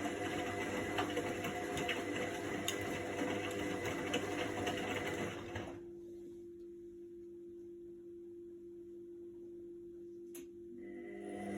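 Indesit front-loading washing machine on a quick wash, the drum turning with a motor hum and faint clicks. About halfway through the drum stops, leaving only a steady low hum for several seconds, then a click and the drum starts turning again near the end.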